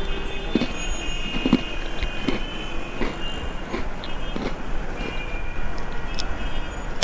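Steady street-traffic noise, with scattered light knocks and short high tones over it.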